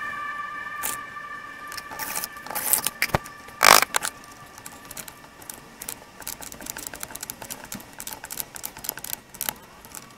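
Light metallic clicking and jingling, small metal pieces knocking together at an uneven pace, with a louder clack about three and a half seconds in.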